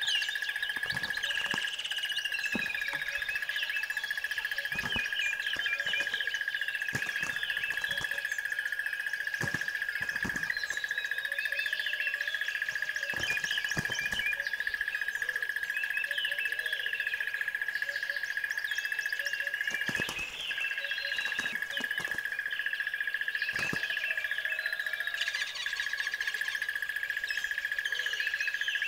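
Many birds chirping and calling over a continuous high-pitched, fast-pulsing trill that holds one steady pitch throughout.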